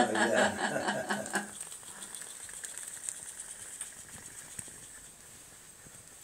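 Handling noise as the small wooden model car is gripped and set down, then the homemade Stirling hot-air engine, with its brass-tube piston and test-tube cylinder, running with a fast, light ticking that fades away as the car moves off.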